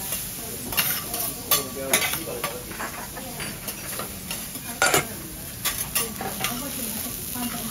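Bean sprouts sizzling on a steel teppanyaki griddle while metal spatulas toss and scrape them. Sharp clicks of spatula on griddle come every second or so, the loudest about five seconds in.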